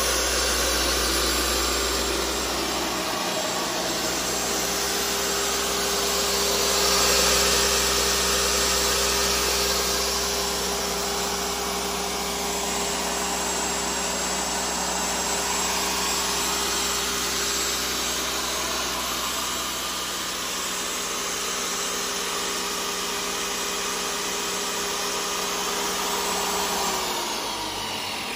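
DeWalt DW744 portable table saw running free, its blade spinning with no wood being cut, a steady whine. Near the end it is switched off and the pitch starts to fall as the blade spins down.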